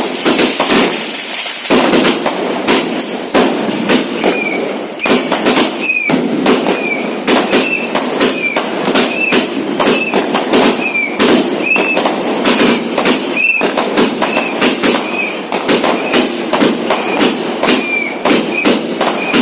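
Multi-shot aerial firecracker cake firing continuously: rapid sharp bangs, several a second. From about four seconds in, many of the shots carry a short whistle.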